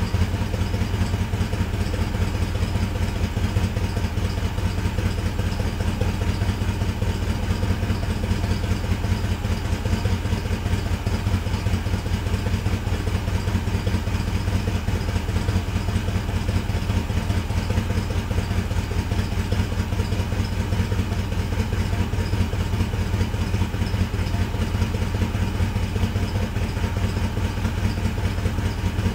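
1985 Ford Mustang GT's 5.0-litre V8 idling steadily through its stock exhaust with a slow rumble, still warming up after a cold start following two months standing unused.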